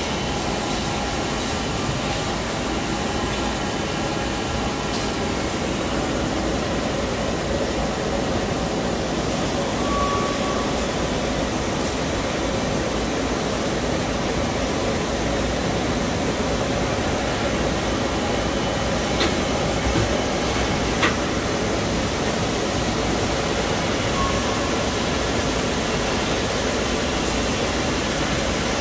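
Citizen K16 CNC Swiss-type lathe running a machining cycle, with a steady rush of coolant spraying over the tooling. Two sharp clicks come about two-thirds of the way through.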